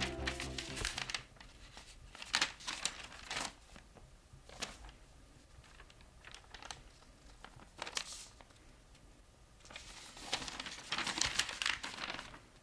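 Paper instruction sheets rustling and crinkling as the pages are flipped and handled, in irregular bursts, the longest and loudest near the end. Music stops in the first second.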